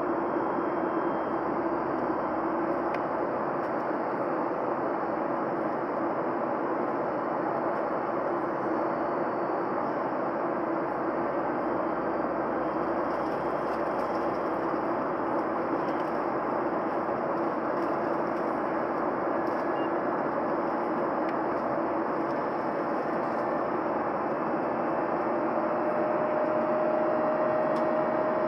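Steady cabin noise inside a Boeing 737-900: the even rush of its CFM56-7B jet engines and airflow, with a steady hum. A faint thin tone comes in near the end, rising slightly.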